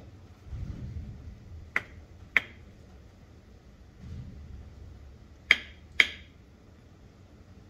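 Water pump assembly from a Honda VF750F struck with a mallet to try to knock it apart: four sharp knocks in two pairs, each pair about half a second apart, the second pair louder. Softer handling bumps come between the pairs.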